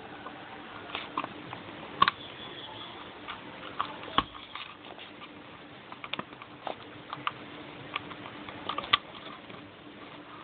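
Scattered, irregular light clicks and taps, the loudest about two seconds in and just after four seconds, over a faint steady hum.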